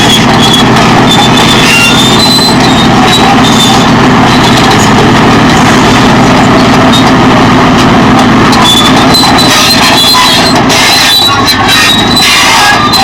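Caterpillar D9 bulldozer's diesel engine running steadily under heavy load while the machine rips hard soil, with intermittent high metallic squeals from its steel tracks.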